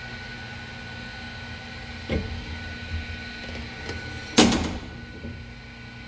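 Sunnen SV-10 honing machine running steadily while honing an engine cylinder bore with diamond stones. A sharp clunk comes about four and a half seconds in, with two lighter knocks a little before it.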